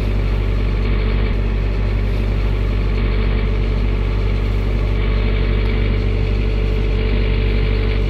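Sailboat's inboard engine running steadily as the boat motors along, a constant low hum with no change in speed.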